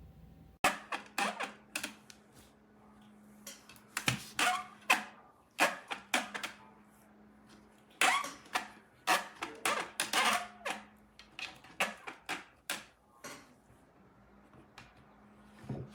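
An irregular run of sharp clicks and taps over a faint steady hum. Both start abruptly just under a second in, and the clicks thin out near the end.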